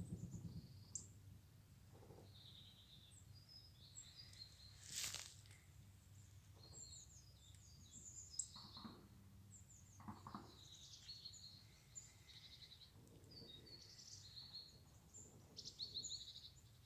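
Faint outdoor ambience with scattered short bird chirps throughout, and one brief noise about five seconds in.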